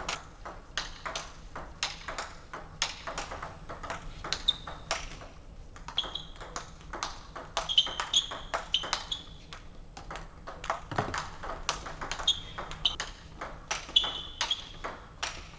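Table tennis rally: the ball clicking off the rackets and the table several times a second, with a few short, high squeaks scattered through.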